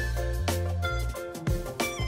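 Background music with a steady beat, sustained bass notes and a melody.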